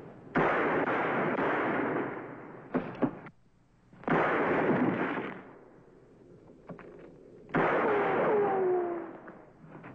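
Three revolver shots, each echoing and dying away over a second or two, with a few short sharp knocks between them. The last shot trails off in a falling whine.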